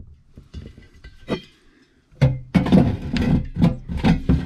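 Steel Campingaz 907 gas bottle being tilted and pushed back into its locker, with a few light clicks at first and then a loud run of knocks and scraping from about two seconds in.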